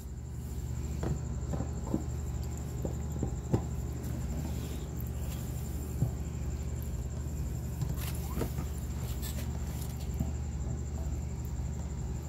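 Sewer jetter hose fed by hand into a drain cleanout pipe, with scattered light scrapes and clicks as the rubber hose rubs against the pipe opening, over a steady low hum.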